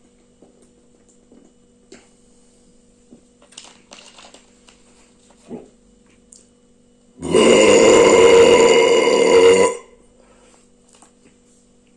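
A man's long, loud burp lasting about two and a half seconds, starting about seven seconds in, brought up by gulping carbonated Coca-Cola.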